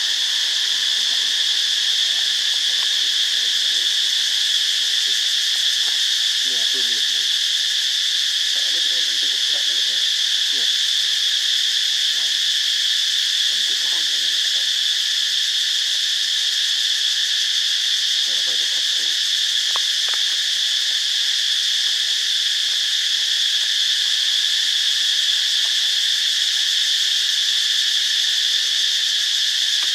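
Continuous high-pitched insect chorus, steady and unbroken, with faint voices now and then underneath.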